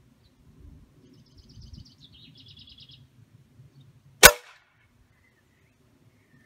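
A single shot from a Steyr Challenge E 10 m air rifle, the pellet striking the paper target in its holder: one sharp crack about four seconds in, the loudest sound. Before it, a bird sings two quick trills of rapid repeated notes.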